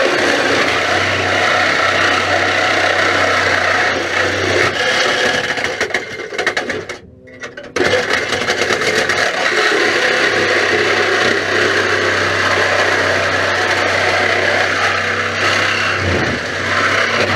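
Reciprocating saw cutting through a car's sheet-steel body shell, running steadily with a low motor hum under the rasp of the blade. It stops for about a second around seven seconds in, then starts cutting again.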